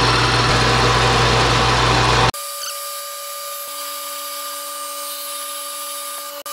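A 12x36 metal lathe running while it turns down a metal shaft. First comes a loud, steady hum with cutting noise. About two seconds in, the sound drops abruptly to a quieter, steady whine of the running lathe.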